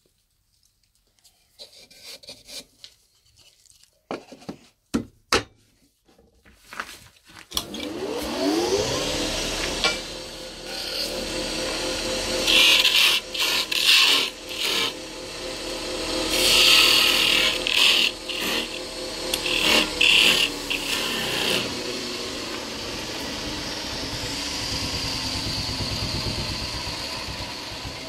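A few knocks, then a wood lathe motor spinning up about seven seconds in, rising in pitch, and running steadily while a turning tool cuts the spinning wood in loud scraping bursts.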